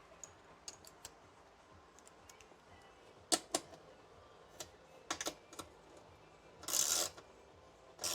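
Scattered clicks and knocks of tools and metal parts being handled while a garage door opener is put together, with a short, louder rasping burst about seven seconds in.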